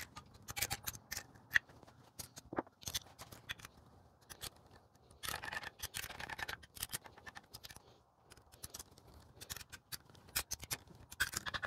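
Speed wrench and socket running nuts down on the case studs of an air-cooled VW engine: a string of sharp metallic clicks and scrapes, with a longer stretch of scraping about five to seven seconds in.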